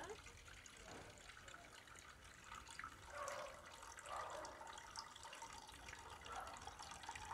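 Faint trickle of fresh coconut milk running through a plastic sieve into a metal cooking pot as grated coconut is strained.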